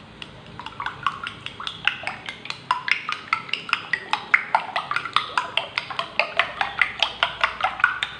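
Four raw eggs being beaten in a glass bowl with a metal utensil: quick clinks of metal against glass, about five a second, each with a short ringing tone.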